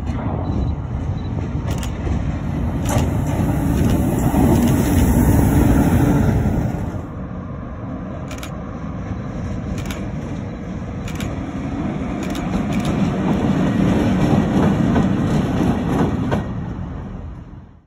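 Freight locomotives shunting in a rail yard. First the rumble of a BB 26000 electric locomotive rolling with its wagons, then, after a cut about seven seconds in, a BB 75000 diesel locomotive running as it moves off. Scattered sharp clicks sound over the rails throughout, and the sound fades just before the end.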